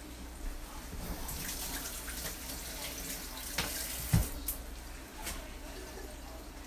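Water running from a tap into a sink for a few seconds, with a sharp knock just after it shuts off.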